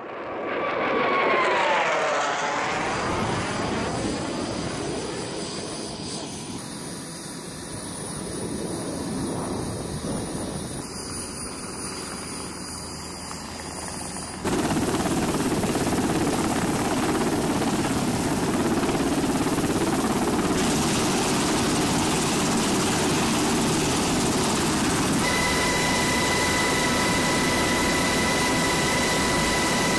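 SH-60 Seahawk helicopter running, its rotor and turbine noise steady across several cuts. Near the start it passes with a shifting pitch, and in the last few seconds a steady whine sits over the rotor noise.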